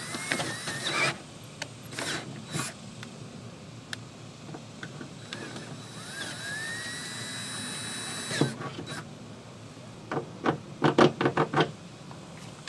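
Cordless drill with a half-inch bit reaming out bolt holes in an aluminum jon boat hull. The motor whirs up in pitch briefly at the start and again for a couple of seconds in the middle. Near the end comes a quick run of sharp clicks, the loudest sound.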